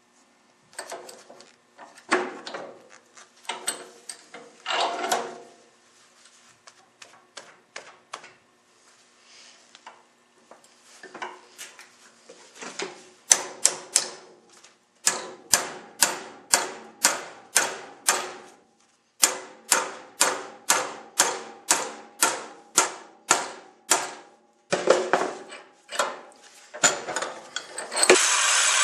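Hammer striking steel bar stock, the metal ringing after each blow: scattered knocks at first, then two long runs of steady blows about two a second, working the stock into a motor-mount bracket. A harsher, rasping noise starts near the end.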